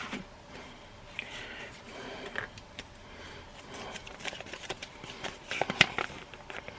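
Handling of an opened product package: soft rustling with scattered sharp clicks and knocks, the loudest few close together near the end.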